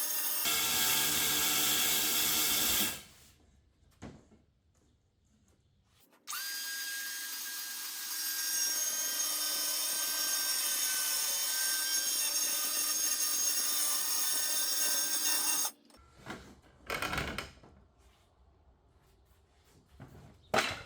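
Power drill running in two stretches, about three seconds and then about ten seconds, with a steady whine, followed by a few short knocks.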